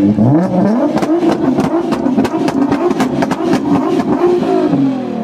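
Nissan GT-R's twin-turbo V6 revved repeatedly while standing still, the pitch rising and falling with each blip. Through the middle, a rapid series of sharp exhaust pops and crackles rides over the revs.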